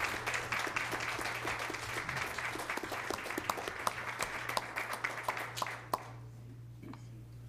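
Audience applauding, stopping about six seconds in.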